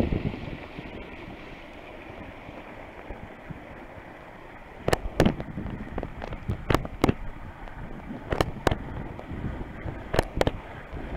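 Water rushing past a small sailing catamaran's hulls, with wind on the microphone. From about five seconds in, sharp slaps come in pairs, one pair every second and a half or so, typical of the hulls hitting small chop.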